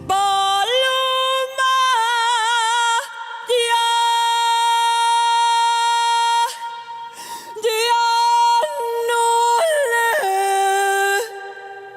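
A woman singing alone, unaccompanied, in ranchera style, with sudden yodel-like leaps into falsetto and held notes with vibrato. One note is held for about three seconds.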